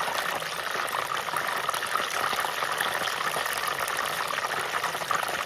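Fish and chips frying in hot oil, a steady sizzle with many small crackles.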